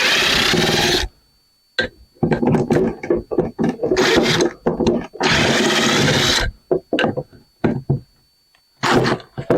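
Screws being taken out of the back of a cast aluminum outdoor light fixture. There are several scraping, grinding bursts of about a second each, with clicks and short pauses between them.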